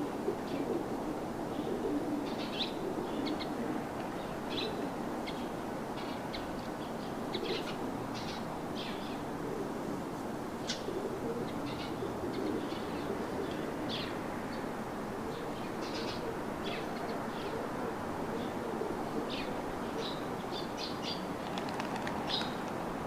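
Wild birds chirping in many short, scattered calls over a steady background hiss.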